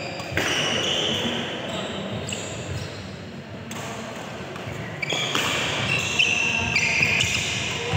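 Badminton doubles rally on an indoor synthetic court: rackets striking the shuttlecock and shoes squeaking on the court mat, with players' voices.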